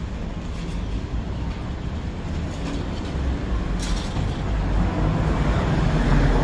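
Low, steady rumble of road traffic, growing louder near the end.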